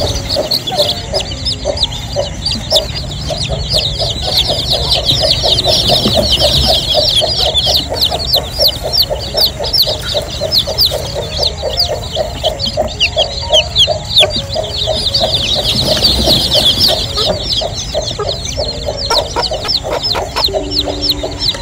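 A brood of newly hatched chicks cheeping without pause, many short high peeps falling in pitch and overlapping, with a hen clucking rapidly underneath.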